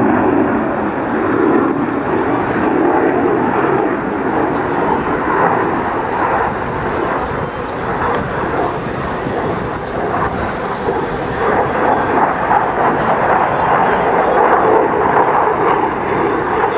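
Jet noise from an F-22 Raptor's twin Pratt & Whitney F119 afterburning turbofans as the fighter flies past in a banking display pass. It is a steady, loud rushing noise that turns brighter and a little louder in the second half.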